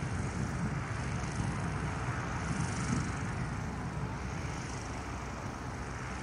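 Zeppelin NT airship's engines running steadily at idle while it sits on the ground, a low, even drone.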